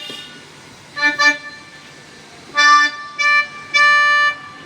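Casio CT-X870IN electronic keyboard playing a short phrase of single notes: two quick notes about a second in, then three more, the last one held longer, on a sustained tone setting.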